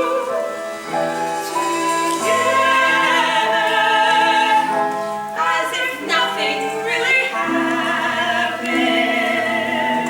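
Stage cast singing a musical-theatre number with accompaniment; held, wavering sung notes throughout.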